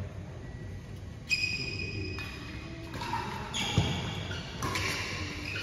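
Badminton rackets striking the shuttlecock in a rally, a sharp ringing hit about once a second, echoing in a large hall.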